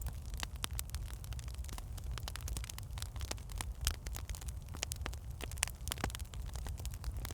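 Wood fire in a fireplace crackling: irregular sharp pops and snaps from the burning logs over a steady low rumble of the flames.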